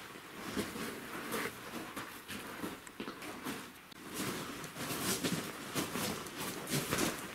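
Footsteps crunching on gravel: several hikers walking, with irregular steps that grow more frequent in the second half.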